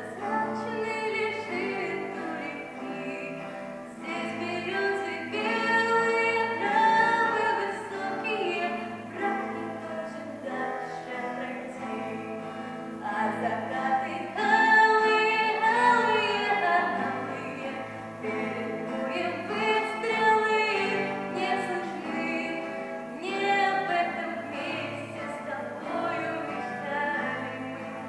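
Schoolchildren singing a song in Russian with instrumental accompaniment, the sung phrases swelling and falling.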